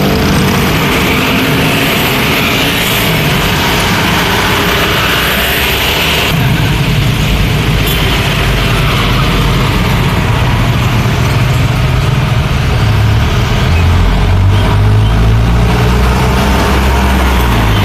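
Close road traffic: motorcycles, a bus and cars passing. In the second half a deep diesel engine rumble builds as small loaded dump trucks move off.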